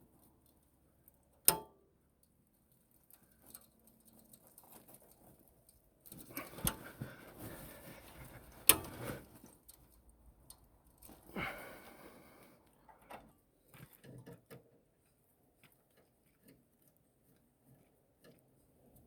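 Hand tools and parts being handled: four sharp knocks with stretches of scraping and rattling between them.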